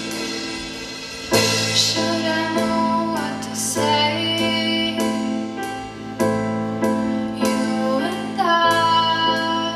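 Live band music: a female vocalist singing over chords on a stage keyboard, with a new chord struck every second or so.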